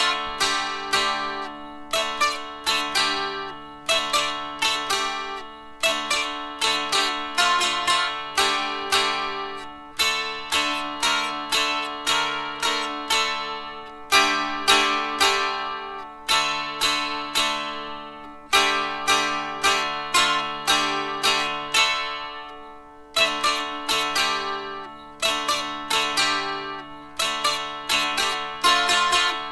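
Solo dulcimer, a fretted zither with drone strings, playing a folk tune: repeated strummed melody notes that ring and fade over steady drone notes.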